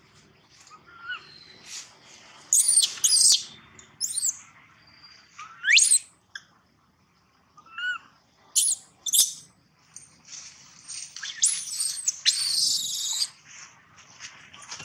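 A baby long-tailed macaque crying: a string of short, high-pitched squeals and screeches in bursts, some sweeping sharply upward, with brief pauses between them.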